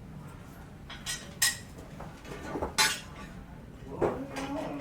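A handful of sharp clinks from hard objects knocked together, spaced irregularly a second or more apart; the loudest come about one and a half and three seconds in.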